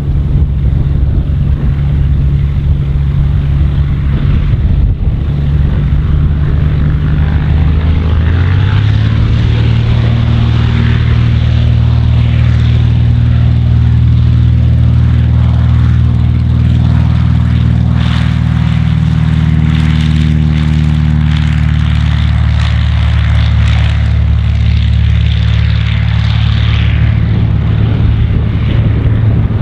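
Cessna 172D's six-cylinder Continental O-300 engine and propeller running. About eight seconds in the pitch steps up as the throttle is opened to full power for the takeoff roll, and it then holds steady and loud through the roll and liftoff.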